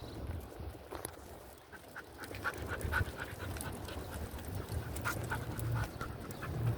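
A dog panting: a run of short, quick breaths through the middle, over a low rumble of wind on the microphone.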